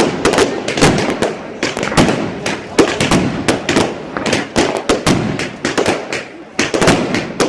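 Fireworks going off: a dense, rapid run of sharp bangs and crackles, several a second, with short lulls about a second in and again near the end.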